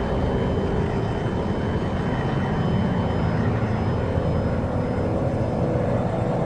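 A steady, dense low rumble with the even drone of a running engine, a faint steady tone joining about two-thirds of the way through.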